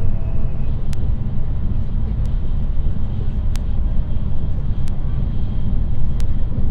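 High-speed bullet train running: a loud, steady low rumble with a faint sharp click about every second and a quarter.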